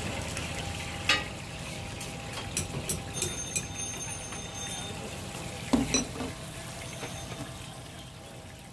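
Marinated chicken pieces sizzling in hot oil on a large flat steel frying pan, with metal spatulas clanking against the pan about a second in and again near six seconds. The sizzle grows fainter toward the end.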